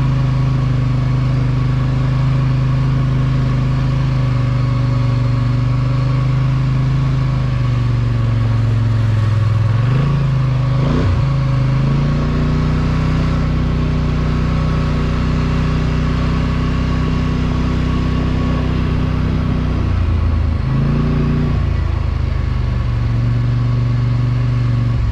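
ATV engine running steadily under way, its pitch dipping and then rising again about ten seconds in, with another brief change in engine speed near twenty seconds.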